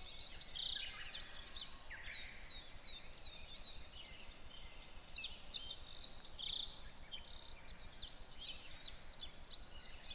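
Several birds calling and chirping outdoors. About two seconds in comes a run of about five quick, high falling whistles, followed by assorted shorter chirps over faint background hiss.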